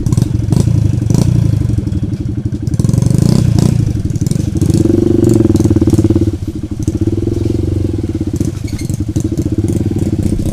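Dirt bike engine running while it is ridden along a rough trail, its pitch rising and falling as the throttle is opened and eased, with scattered knocks and rattles from the bike over the bumps.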